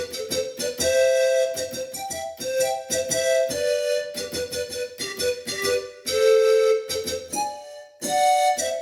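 Yamaha PSR-530 keyboard playing a piano-type voice: a quick run of short, repeated notes with a few longer held notes in between.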